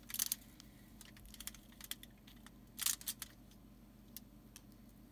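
Flux sizzling under a soldering iron tip as tin-lead solder melts onto aluminium foil: two short crackling bursts, one at the start and one about three seconds in, with a few faint ticks between them. A faint steady hum lies underneath.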